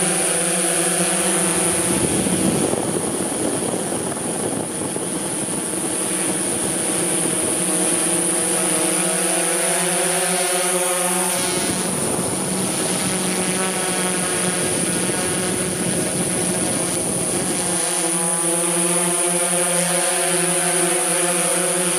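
DJI S1000 octocopter's eight electric motors and propellers humming steadily in flight, with a high whine above the hum. About two seconds in, a rushing noise swells over the hum and lasts several seconds, then does so again near the middle.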